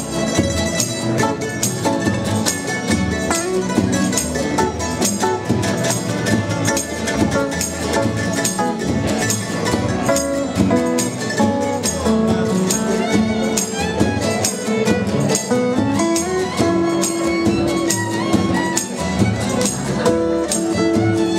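Acoustic street band playing: fiddle, acoustic guitars, mandolin and double bass together over a steady percussive beat.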